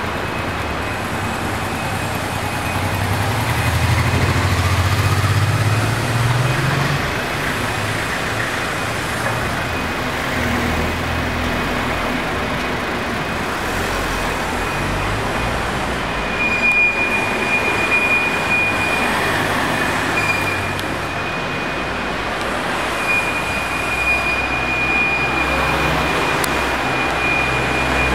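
Urban street traffic noise: a steady wash of road vehicles with a low engine rumble that swells a few seconds in as a vehicle passes. A thin, steady high whine runs underneath.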